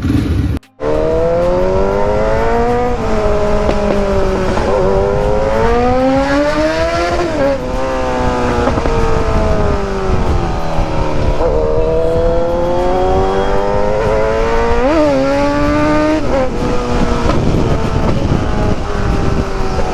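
Motorcycle engine pulling hard, its revs climbing and falling again and again as it accelerates and eases off, with quick dips in pitch between pulls. The sound cuts out briefly about a second in.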